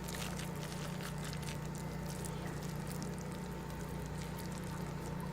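Hot olive and coconut oil crackling faintly in a pan on the grill, over a steady low hum.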